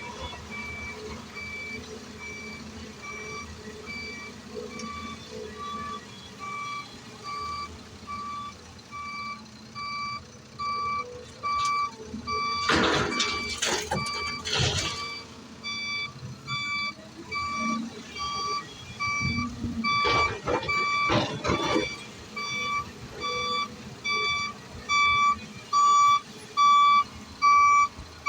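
A heavy machine's reversing alarm beeping steadily about once a second, growing louder near the end, over a diesel engine's rumble. Twice in the middle, loud rushing bursts of noise break in.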